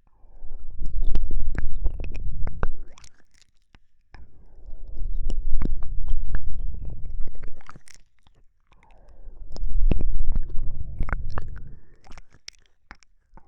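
Soft, close-miked ASMR breathing in three long breaths, each a low rush on the microphone, with wet mouth clicks scattered through them.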